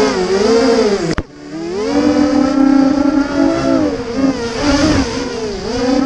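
FPV quadcopter's brushless motors whining as heard from the onboard camera, the pitch rising and falling with the throttle. The sound breaks off sharply a little over a second in and builds back up.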